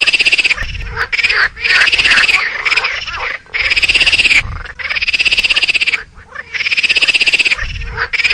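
Squirrel chattering: loud bouts of very rapid, raspy pulses, each lasting about a second, repeated with short breaks between them.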